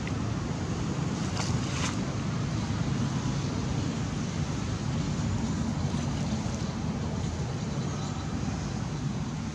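Wind buffeting the microphone: a steady low rumbling noise, with two faint ticks about a second and a half in.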